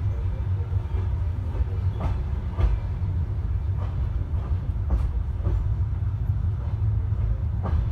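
Passenger train carriage rolling out of a station, heard from inside: a steady low rumble with a few sharp, unevenly spaced clacks of the wheels over rail joints and points.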